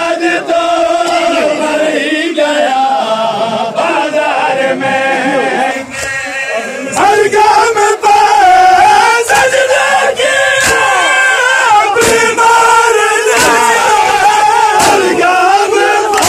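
Large crowd of men chanting a mourning lament in unison. About seven seconds in it grows louder, and the sharp slaps of bare-handed chest-beating (matam) come in, roughly one a second.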